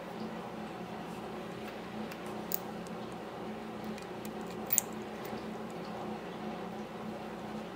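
Faint ticks and clicks of the small metal contact blades and insulator spacers of an electromechanical pinball leaf-switch stack being fitted back together by hand. Two sharper metallic clicks come about two and a half seconds in and just before five seconds in, over a steady low background hum.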